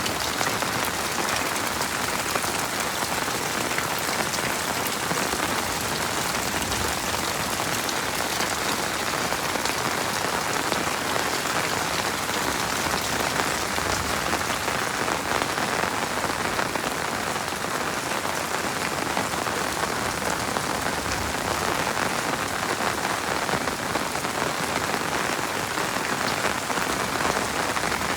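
Heavy rain falling steadily: a dense, even hiss of countless drops with fine patter.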